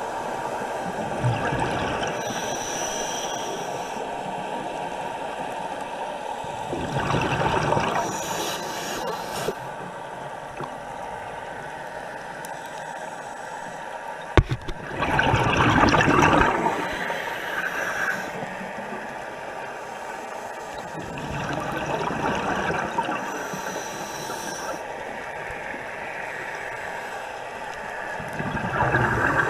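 Scuba diver breathing through a regulator underwater: a hissing inhale, then a loud rush of exhaled bubbles, about every seven seconds.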